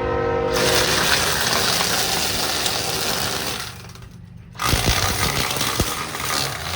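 A small motor-driven tool running with a harsh, dense whir. It cuts out for about a second midway and starts up again.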